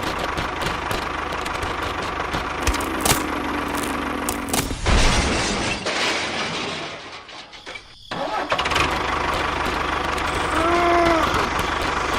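Small motor running steadily with clicking and rattling. It falls away for a second or two past the middle, then comes back suddenly, with a few short rising and falling whines near the end.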